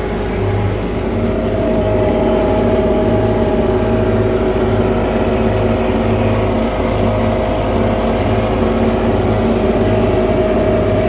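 Motorboat engine running at a steady speed, a constant drone with no change in pitch.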